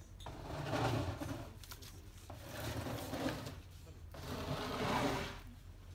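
A kitten scratching and digging in loose soil in a plastic bucket: three rustling scrapes, each about a second long.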